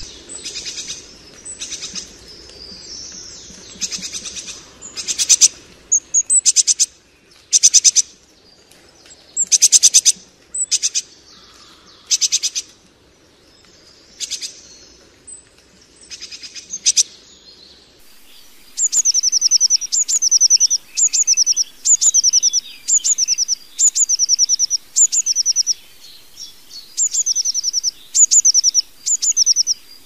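Small songbirds calling: first a series of loud, high, rapid chattering bursts, then from about two-thirds of the way in one bird repeating a short high phrase about once a second.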